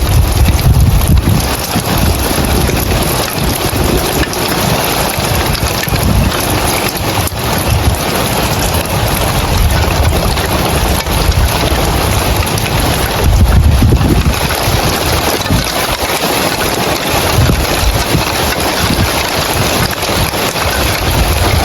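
Heavy rain pattering steadily on roof tiles, a dense even hiss. Low gusts of wind buffet the microphone at the start, about two-thirds of the way through and again at the end.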